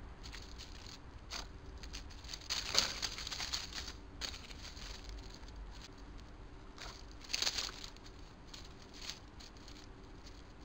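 Dry leaf litter rustling and crackling as a small rodent scurries and forages through it. There are two bouts of quick crackles, the longer one a couple of seconds in and a shorter one past the middle.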